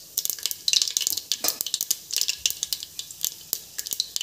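Whole spices (mustard seeds, bay leaves, cinnamon and cloves) frying in hot oil in a pressure cooker: irregular crackling and popping, many sharp pops a second.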